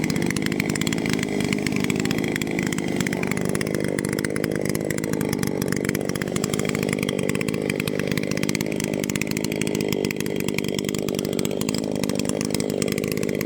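Gasoline chainsaw running steadily at high speed, cutting through a storm-downed tree.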